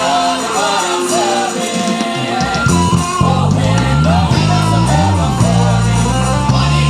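Live music with singing over a backing track; a heavy bass line comes in about two and a half seconds in.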